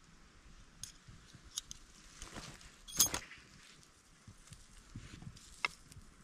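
A few scattered sharp knocks and clinks, the loudest about three seconds in and another shortly before the end.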